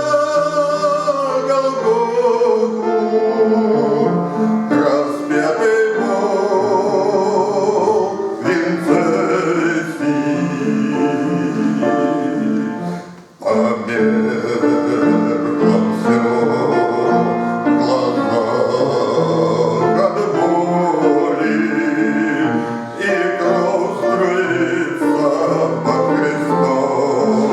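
A man singing a Christian hymn with instrumental accompaniment, with a short break in the sound about halfway through.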